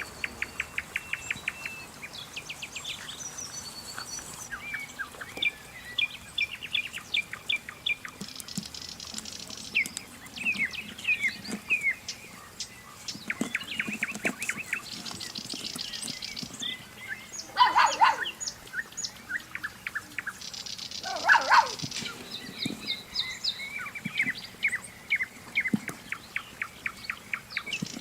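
Small birds chirping, with many short rapid chirps in quick series. Two louder, lower calls stand out about two-thirds of the way through, a few seconds apart.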